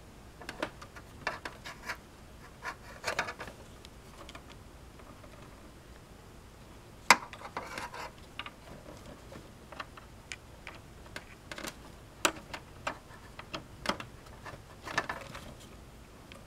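Irregular clicks, taps and rustles of plastic cable connectors and wires being handled against a desktop computer's metal drive bay, as a drive connector that will not seat, being held the wrong way round, is worked at; one sharp click about seven seconds in is the loudest.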